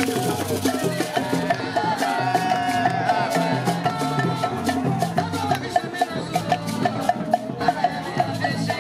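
Music with a fast, steady percussion beat of short knocks over a repeating bass line.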